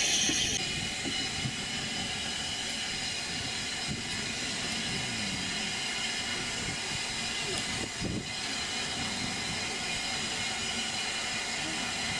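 A brief loud hiss of steam from a Double Fairlie 0-4-4-0 narrow-gauge steam locomotive at the start, then the steady running noise of the steam train with hissing steam underneath and voices in the background.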